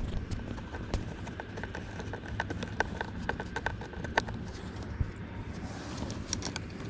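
Phillips screwdriver driving screws into a car's plastic center console: a run of irregular clicks and ticks, thickest in the middle.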